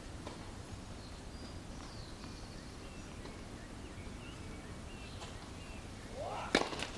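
Steady outdoor ambience with a few faint bird chirps. Near the end comes one sharp crack of a tennis racket striking the ball, with a brief rising sound just before it.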